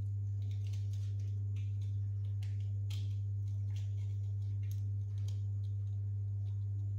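Steady low electrical hum, with faint scattered light clicks and taps over it.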